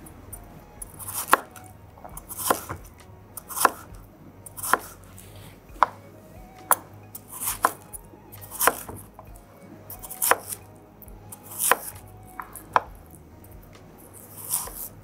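Kitchen knife slicing peeled Japanese yam on a plastic cutting board, each cut ending in a sharp knock of the blade on the board, about once a second.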